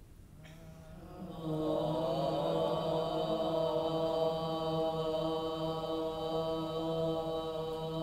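Chanting voice holding one long, steady note, starting about a second and a half in: a mantra chant for the root chakra.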